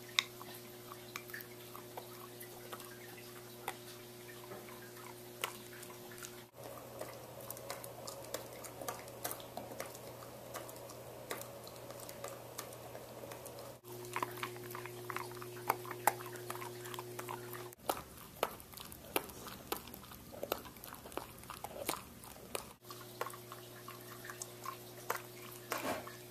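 A beagle chewing crunchy dog treats: irregular crunches and jaw smacks, with a steady hum behind in some stretches.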